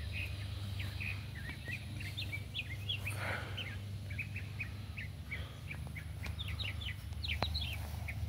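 Small birds chirping, with many short high chirps in quick runs, over a low steady rumble.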